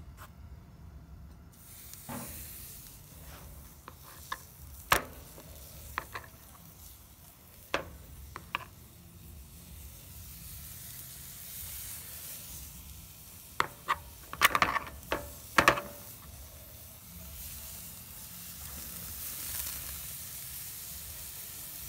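Thick steaks sizzling as they are laid on a hot barbecue grill, a steady hiss that starts about a second and a half in. Sharp metal clicks and clatters of tongs against the grill grate come every second or two, with a quick run of them about two-thirds of the way through.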